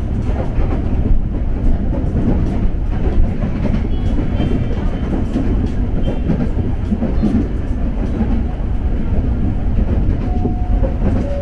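KRL Commuter Line electric train running on the rails: a steady, loud rumble with faint clicking of the wheels.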